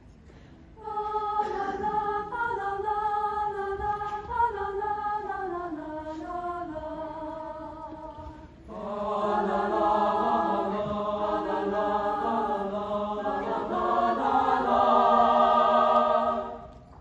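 School choir singing a cappella in harmony: one phrase starts about a second in, then after a short breath a louder, fuller phrase runs until it stops shortly before the end.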